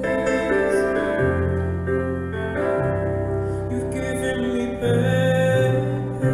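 Young male voice singing long held notes over a slow piano accompaniment.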